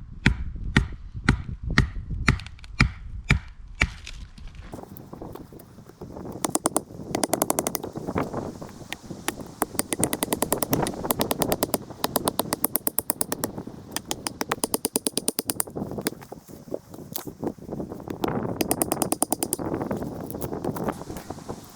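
Firewood being chopped into kindling, sharp blows about two a second, for the first four seconds. After that come repeated short runs of rapid, fine clicking and crackling, each a second or two long, as the fire is prepared.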